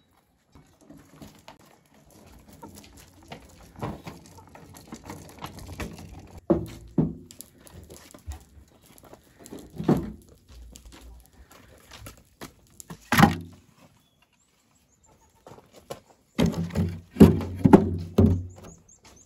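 Firewood branches being handled in and against a metal wheelbarrow: a run of wooden knocks and thunks, with a sharp one about 13 seconds in and a cluster of heavier ones near the end.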